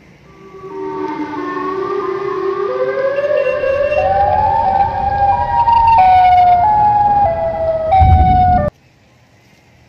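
Siren Head creature sound effect: a loud, distorted siren-like wail that climbs in pitch in steps over several seconds, then jumps between a few held pitches over a low rumble and cuts off suddenly near the end.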